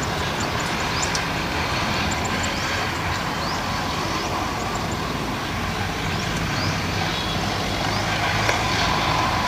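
Diesel farm tractors, a John Deere 5310 among them, running steadily while pulling round straw balers.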